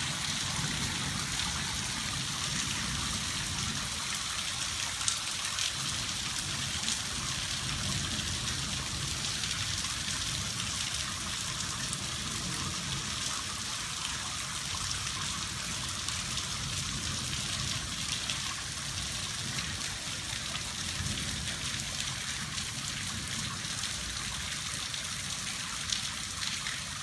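Steady storm rain falling on a village street and its tiled roofs, with rainwater running down the street. A few louder drips stand out now and then.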